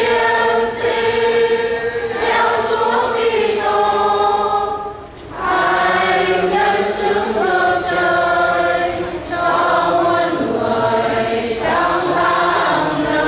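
Choir singing a slow hymn in long held notes, phrase by phrase, with two brief breaks between phrases.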